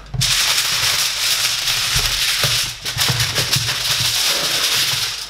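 Sheet of aluminium kitchen foil crinkling and rustling as it is handled and spread out, a loud continuous crackle with a brief lull about halfway through.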